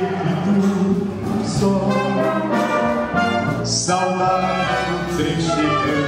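A wind band of clarinets, saxophones and brass playing sustained chords that change several times.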